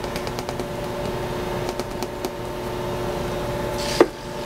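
Grated Parmesan shaken from its container into a metal measuring cup with faint light ticks, then one sharp knock about four seconds in as the cup is brought to the food processor's plastic bowl, over a steady background hum.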